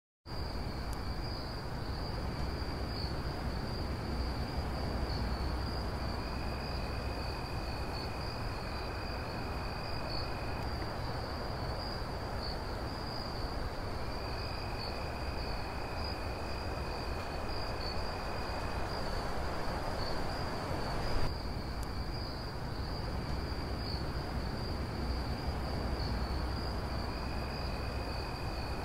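Night-time insect ambience: crickets chirping steadily in a high band, with a second, lower trill coming and going for several seconds at a time over a steady rushing background. There is a short jump in the sound about two-thirds of the way in.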